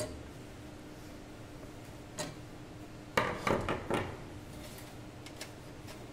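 A screwdriver pulled from an open metal PC case and laid on a wooden table: one click about two seconds in, then a short clatter of knocks, the loudest sound. A few faint ticks from handling the power-supply cables follow, over a faint steady hum.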